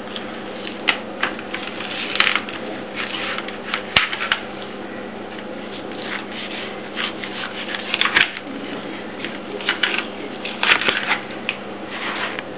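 Kitchen knife cutting and scraping through a wels catfish along its ribs and backbone on a plastic cutting board: irregular short scrapes and clicks, several to the second at times, over a steady low hum.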